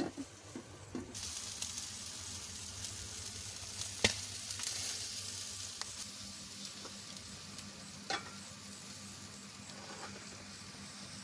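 Food being cooked over high heat starts to sizzle about a second in. The sizzle begins suddenly and slowly dies down, with two sharp clicks along the way.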